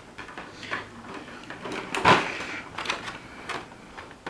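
A small knife cutting through adhesive tape on a plastic miniature tray, with scraping and handling clicks; one louder knock about two seconds in.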